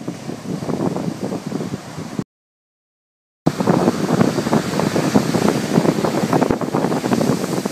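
Wind buffeting the microphone over the wash of breaking surf, cut by a dead silence of about a second a little over two seconds in.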